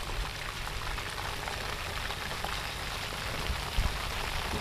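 A whole pomfret deep-frying in a pan of hot oil: a steady dense sizzle full of small crackles and pops, over a low rumble.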